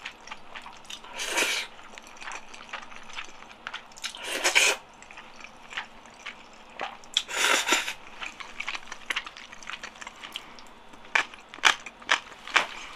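Close-miked slurping of jjajang noodles in black bean sauce, three long slurps about three seconds apart. Between them come wet chewing and mouth clicks, with a run of sharper chewing clicks near the end.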